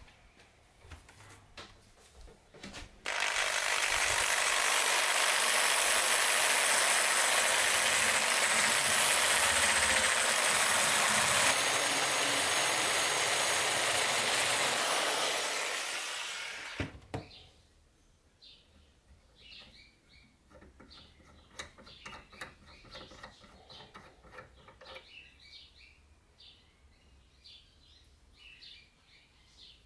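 Rotary tool with a wire brush wheel scrubbing the threaded steel collet of a file holder, a loud steady hiss that starts about three seconds in and dies away about sixteen seconds in. After it, faint light metal clicks and scrapes as the knurled nut is screwed on by hand.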